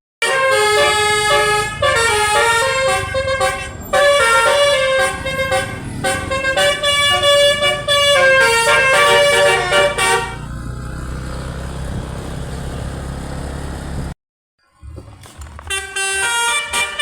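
DAV musical air horn playing a 'telolet basuri' tune, stepping from note to note for about ten seconds. The horn then stops while an engine runs steadily. After a brief dropout about fourteen seconds in, the horn tune starts again.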